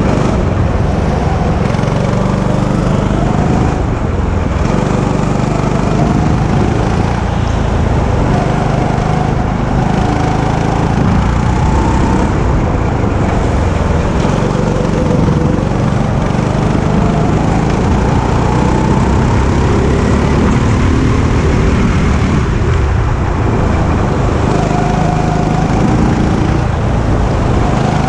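Go-kart engine running hard, heard from on board the kart, its pitch rising and falling as the kart lifts off and accelerates through the corners.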